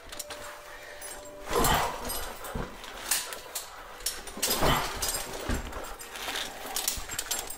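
A caver breathing hard and heavily from the effort of climbing a rope, several strong breaths a few seconds apart, with sharp clicks of climbing gear in between.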